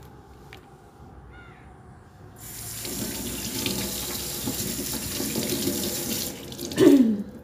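Kitchen tap running into a stainless steel sink for about four seconds as long beans are rinsed under it, then turned off. Just before the end a short, loud sound falls in pitch.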